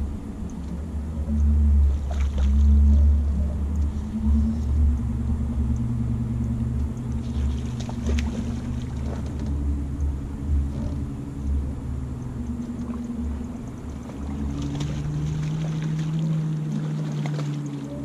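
Boat motor humming steadily at a low pitch that shifts down and back up a couple of times, over a fluctuating low rumble, with a few faint clicks.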